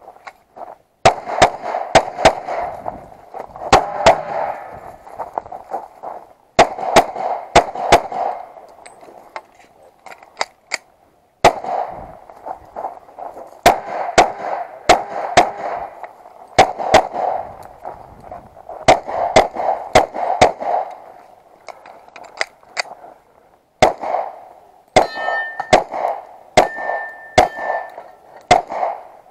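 Semi-automatic pistol fired in quick strings of two to several shots, with short pauses between strings, each shot ringing out briefly. Near the end, steel plates ring as they are hit.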